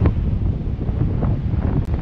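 Strong, gusty wind buffeting the microphone, a steady low rumble, with surf breaking behind it.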